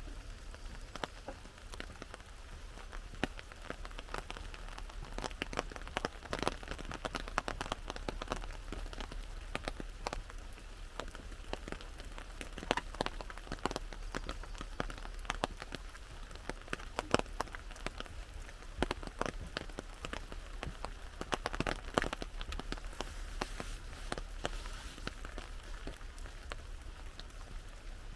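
Rain falling on an umbrella: a dense, irregular run of sharp drop taps over a steady hiss of rain.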